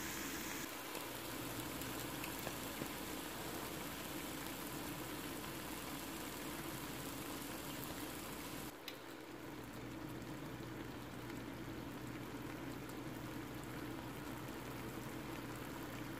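Rabbit meat, mushrooms and onions frying in a pan, a steady sizzle with faint crackles over a low hum. The sound changes abruptly about a second in and again about nine seconds in, the later part with eggs frying on the meat.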